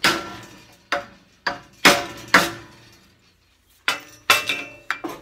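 A series of about nine sharp metallic clanks and knocks, each ringing briefly, as the welded steel hand truck is tipped over and handled while its wheels are fitted.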